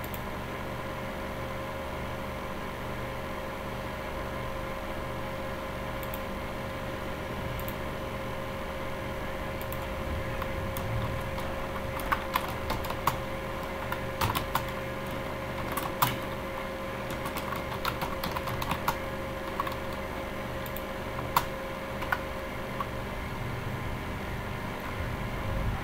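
Typing on a computer keyboard: a run of irregular keystrokes from about halfway in, over a steady background hum. A couple of single mouse clicks come earlier.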